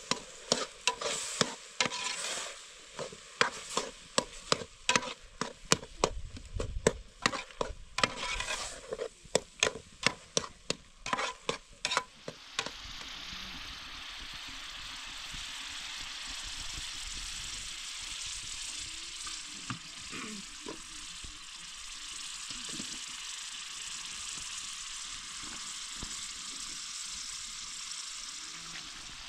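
A metal ladle clacking and scraping against a metal cooking pot as a stew is stirred, many sharp strokes for about twelve seconds. After that comes a steady sizzling hiss of oil frying in a pan.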